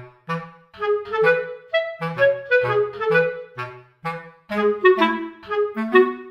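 Background music: a clarinet playing a bouncy melody of short separate notes over a low bass line, pausing briefly about four seconds in.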